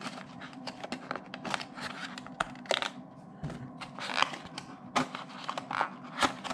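Hands handling an earbud box and its packaging insert: irregular sharp clicks, taps and rustles as the insert is worked loose and the box is turned over.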